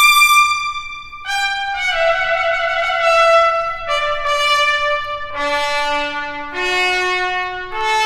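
Intro music of brass instruments, led by trumpet, playing held chords that move to new notes every second or two.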